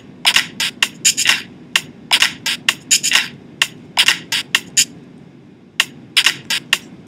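Quick, irregular sharp clicks and taps coming in clusters, pausing for about a second near five seconds in, over a steady low hum.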